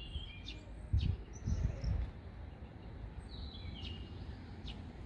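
Small birds chirping in short, high notes with falling pitch, near the start and again around three to four seconds in, over outdoor background noise. Low rumbling noise on the microphone is loudest between about one and two seconds in.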